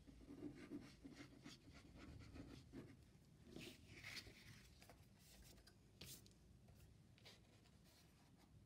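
Faint rustling, scraping and light taps of card stock being handled on a table, with a short scratchy rustle a few seconds in and a single sharp click about six seconds in.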